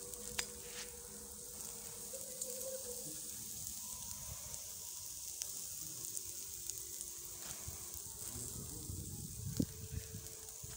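Meat-and-pepper skewers sizzling on a charcoal grill: a steady high hiss with scattered small crackles. A single knock sounds near the end.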